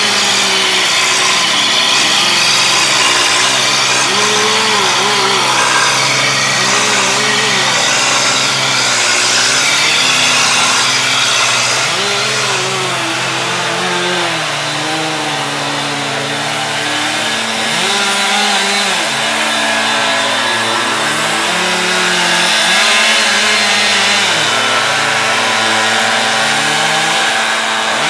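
An engine running and revving, its pitch repeatedly rising and falling, over a steady hiss of machinery.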